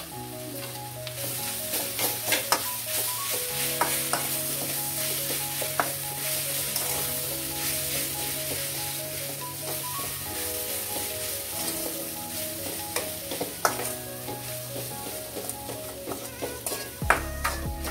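Mashed potatoes and onions sizzling as they fry in a steel pan, with a steel spoon stirring and scraping against the pan's sides and bottom in frequent clicks. Soft instrumental background music plays underneath.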